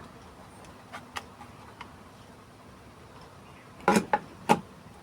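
Light clicks and taps of a power bank's parts and tools being handled on a work surface, then three louder clacks about four seconds in.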